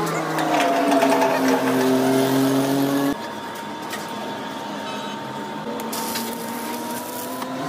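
Lathe motor running with a humming tone that drifts slowly in pitch, then cuts off abruptly about three seconds in. After it comes a quieter steady hiss and crackle of a stick-welding arc building up weld on the worn teeth of a differential pinion gear.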